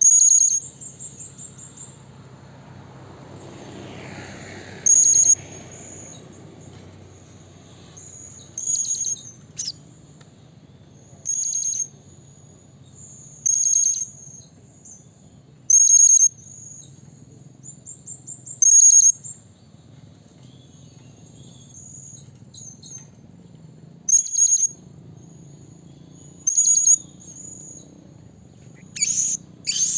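Blue-crowned hanging parrot (serindit) giving sharp, very high-pitched call notes every two to three seconds, some in quick stuttering runs: the calling sound used to draw an answer from other serindits.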